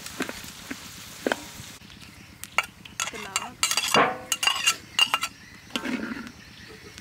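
A metal spatula stirring and scraping fried rice around a wok, with a light sizzle over the first couple of seconds, then a busy run of sharp clinks of metal against the pan in the second half.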